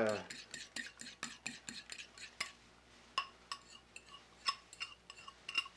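Metal spoon clinking and scraping against a ceramic mixing bowl as cookie mixture is stirred: a quick run of light ticks at first, then single ringing clinks every half second or so.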